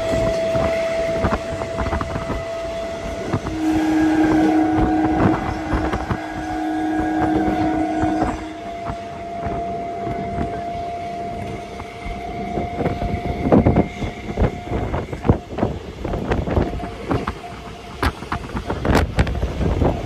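Electric suburban local train running at speed, heard from inside the coach: wheels clacking over rail joints under a steady rush of noise and wind on the microphone. Steady humming tones run through it, with a lower tone held for about five seconds from about four seconds in.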